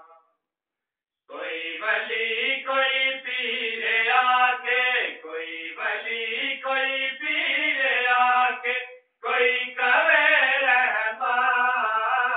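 Unaccompanied male voice chanting a devotional recitation, a naat as sung at a milad, in long held, wavering notes. It starts about a second in and pauses briefly near the end.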